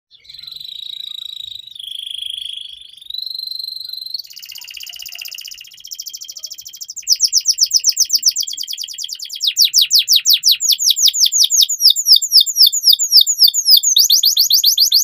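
Domestic canary singing: held whistled notes and buzzy trills at first, then from about seven seconds a louder run of rapid repeated sweeping notes.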